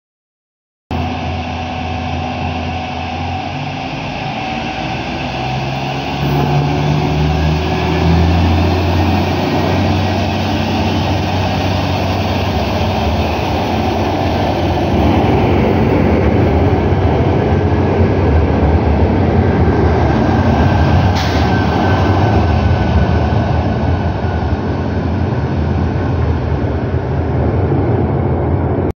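SA136-series diesel railcar pulling out of the station and accelerating away. Its engine runs under load, rising in pitch several seconds in, with wheel and rail noise throughout and a single sharp click about three-quarters of the way through. The sound starts about a second in.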